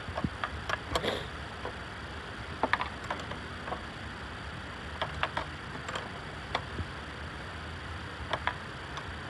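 Irregular light metallic clicks and clinks of a wrench working on a nut under the hood, over a steady background hiss.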